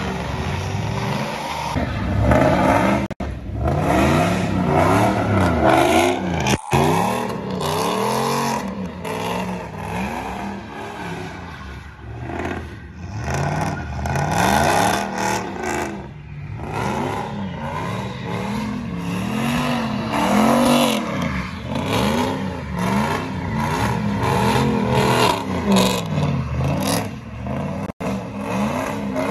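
Pickup truck engines revving up and falling back over and over as the trucks spin donuts, with the rush and squeal of spinning tyres on asphalt.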